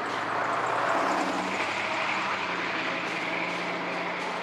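Empty freight cars of a CSX train rolling past on the track, the wheels making a steady rushing noise that swells about a second in, with a faint steady whine over it.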